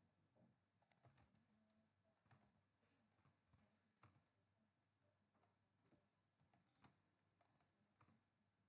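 Very faint typing on a computer keyboard: scattered, irregular keystroke clicks.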